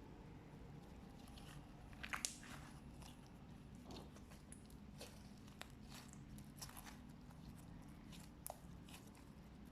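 Faint sticky crackles and small clicks of fluffy slime being squeezed and stretched by hand, with a louder cluster of pops about two seconds in.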